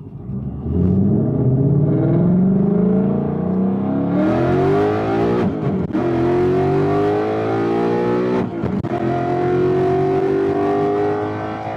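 2019 Mustang Bullitt's 5.0-litre V8, breathing through long-tube headers, pulling hard under full-throttle acceleration, its pitch climbing steadily through each gear. Twice the sound breaks off briefly for a quick manual upshift, about halfway through and again near two-thirds, then climbs again.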